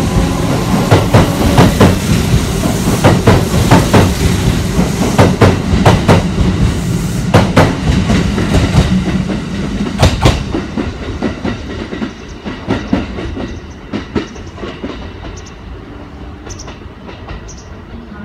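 Kintetsu 3200 series electric train running past close by, its wheels clattering over rail joints in quick clickety-clack beats, then fading as it draws away, much quieter from about two-thirds of the way in.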